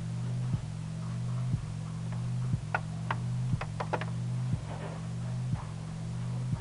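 Music played through a Sony stereo system, in a quieter passage: a steady low drone with a sharp tick about once a second and a few short higher notes near the middle.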